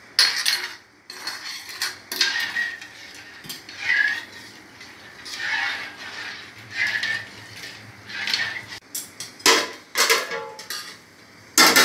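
Steel spoon stirring and scraping semolina halwa in a kadai, a stroke about every second and a half, then a few sharp metal clanks near the end as a steel plate is set over the pan as a lid.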